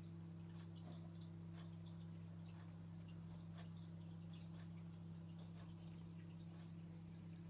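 Aquarium equipment running: a steady low electrical hum with faint, irregular water drips and small bubbles breaking at the surface.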